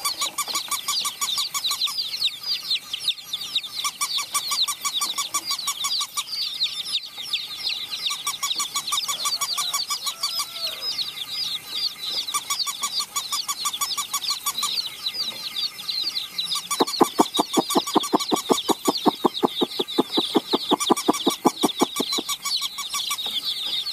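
A flock of baby chicks peeping continuously, many high downward-sliding cheeps overlapping. Over them a fast, even rhythmic clicking comes and goes in short spells and grows loudest for the last several seconds.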